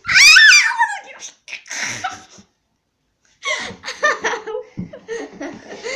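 A girl's loud, high-pitched shriek of laughter in the first second, followed by breathy laughing, a short pause, then more giggling and laughter.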